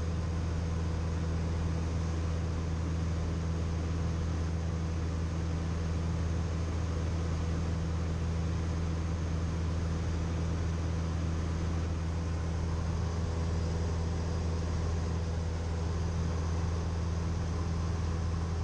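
Cessna 172M's four-cylinder Lycoming O-320 engine and propeller droning steadily in flight, a constant low hum heard in the cabin.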